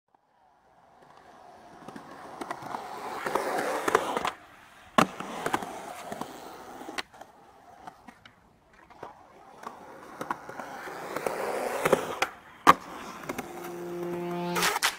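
Skateboard rolling on concrete, its wheel noise swelling as it comes closer, cut off at times and broken by several sharp clacks of the board hitting the ground.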